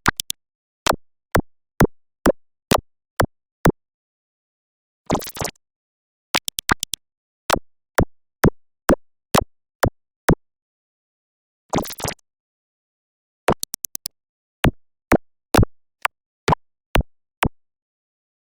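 A run of short, sharp synthetic clicks, about two a second, with dead digital silence between them; it pauses twice and is broken twice by a brief hissing burst, about five and twelve seconds in.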